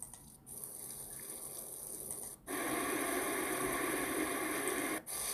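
Rain sound effect playing as a steady hiss of rainfall. It is faint at first, turns louder about halfway through, and cuts out for a moment near the end.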